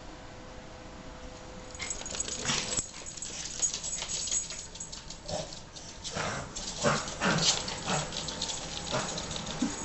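Maltese dog reverse sneezing: a quick, irregular series of rough, noisy breaths that starts about two seconds in, the throat spasm common in small breeds.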